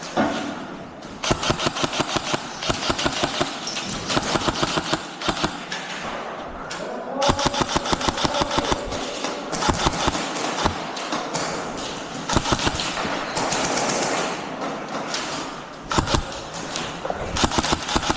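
Airsoft guns firing in rapid bursts, each a fast run of sharp clicks, with several bursts close together and short gaps between them, and another near the end.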